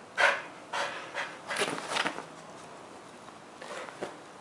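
A keeshond shifting about in its padded fabric dog bed: a few short, soft rustles in the first two seconds, then quieter.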